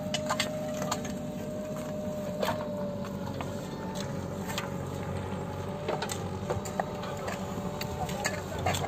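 A machine running steadily, a low hum with a thin, slightly wavering whine over it, and scattered sharp clicks and knocks at irregular intervals.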